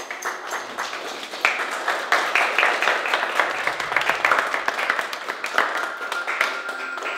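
Audience applauding: a room full of people clapping by hand, growing louder about a second and a half in.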